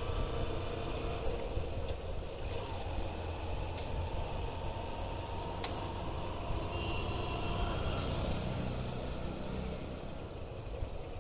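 Hero Hunk motorcycle's 150 cc single-cylinder engine running as the bike is ridden at low speed, heard from the rider's seat as a steady low rumble, with a few faint clicks in the first half.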